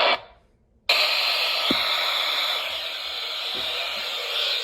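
Steady hiss of radio static from a receiver once the broadcast audio drops out, starting just under a second in.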